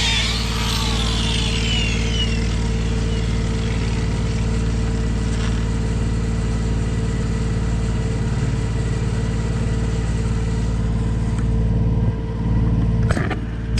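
Engine running steadily at a constant speed, with a short knock near the end.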